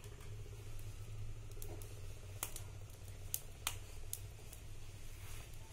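Cooking oil poured from a plastic bottle into a hot pan, with a few sharp ticks scattered through over a low steady hum.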